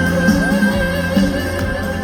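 Stage music played loud through a PA system: guitar over a steady, pulsing bass line.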